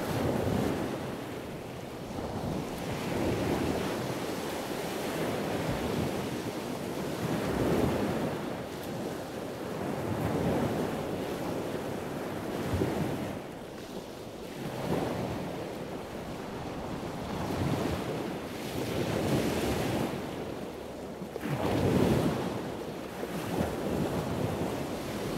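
Sea waves washing in, with wind: a rushing noise that swells and fades every two to three seconds.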